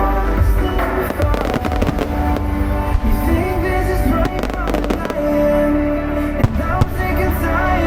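Aerial fireworks bursting and crackling in quick repeated bangs over loud pop music playing with the display.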